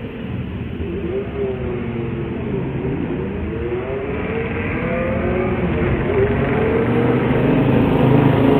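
Airbus A350 twin-engine jet airliner passing low overhead, its Rolls-Royce Trent XWB engines making a loud jet rumble that grows louder, with tones that slide up and down within it.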